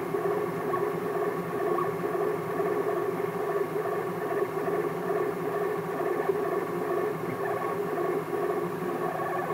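Home-built 3D printer running a print: its stepper motors whine in several steady tones that waver quickly as the axes make short moves.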